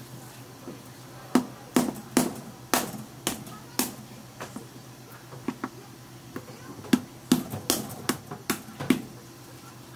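Sharp, irregular knocks and clacks of kitchen work on crab, in two runs of about half a dozen each, over a steady low hum.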